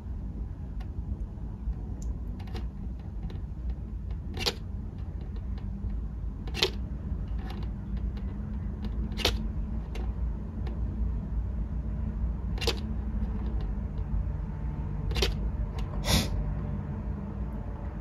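Room ambience: a steady low hum with about half a dozen short, sharp clicks at irregular intervals.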